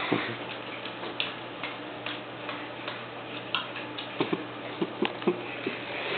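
English bull terrier licking and smacking at peanut butter inside a rubber Kong toy: irregular clicks of tongue and jaws, with a quick run of louder ones about four seconds in.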